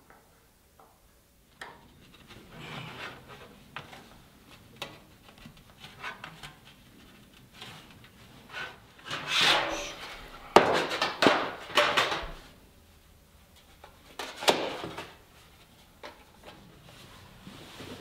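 A thin metal sheet being flexed and bent into a cone by hand: irregular rustling, scraping and flexing of the sheet, with sharp metallic clicks and clanks. The loudest handling comes about halfway through, with another sharp burst a few seconds later.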